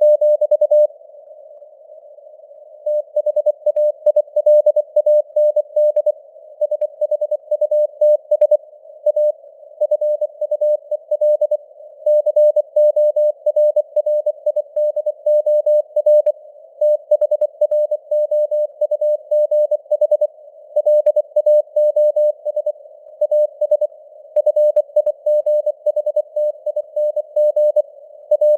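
Morse code (CW) at 24 words per minute: a single mid-pitched beep keyed on and off in rapid dots and dashes, over faint simulated radio hiss. The keying pauses for almost two seconds about a second in, then runs on.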